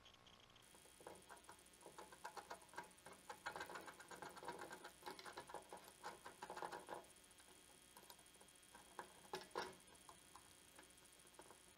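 Faint clicking and tapping of hard plastic parts and wires being handled and pressed into an open jigsaw housing, in irregular clusters of small ticks.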